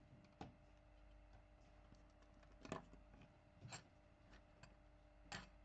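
Near-silent room tone with a faint steady hum and a few faint, short clicks, the loudest nearly three seconds in.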